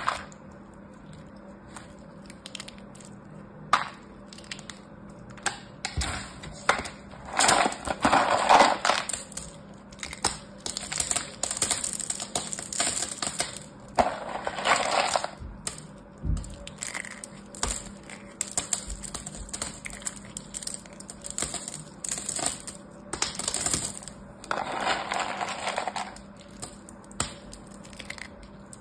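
Dry carved soap shavings crackling and clattering as hands stir them in a plastic tub, tip them out and squeeze them in a fist. Crisp crunching comes in repeated spells between scattered clicks, the loudest spell about a third of the way in.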